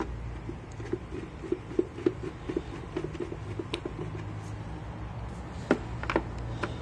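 Screws being driven into a vacuum cleaner's plastic housing with a screwdriver: a run of small quick clicks, several a second, for about three seconds, then a few sharper knocks near the end.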